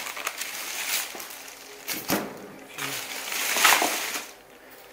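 Plastic bags and wrapping rustling and crinkling as groceries are taken out and set on a table, with the loudest rustle about three and a half seconds in.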